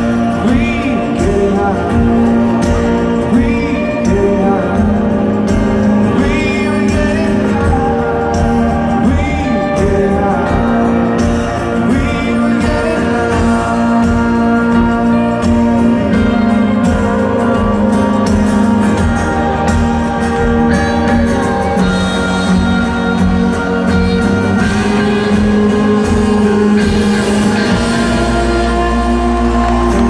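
Live rock band playing, with a male voice singing over acoustic and electric guitars and drums, picked up from the crowd in a stadium. A deep low note comes in near the end.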